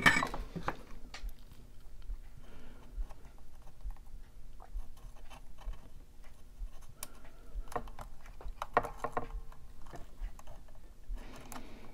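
Scattered light clicks and taps of hands handling wires and a soldering iron while soldering onto the volume pot of a Stratocaster's pickguard wiring, with a louder knock at the start and a run of clicks about eight seconds in.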